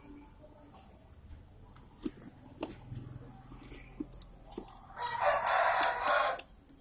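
A few light clicks and taps of metal as a wire terminal is worked onto a motorcycle battery's positive terminal bolt. About five seconds in, a rooster crows for about a second and a half, the loudest sound.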